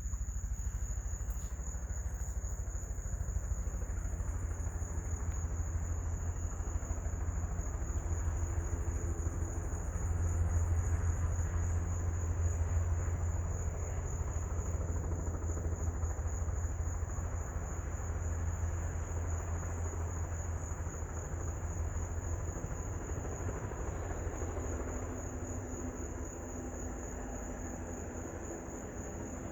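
Helicopter running on the ground nearby: a low, steady rumble that swells about ten seconds in and eases off toward the end. A steady high insect trill runs behind it.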